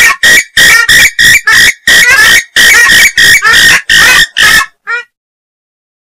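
Purple swamphen giving a rapid series of loud, harsh squawking calls, about three a second, breaking off about four and a half seconds in. This is a breeding-season lure call, used to draw swamphens in by provoking them.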